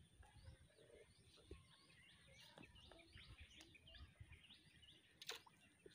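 Faint chorus of birds chirping and twittering, many short rising and falling calls, with a single sharp click about five seconds in.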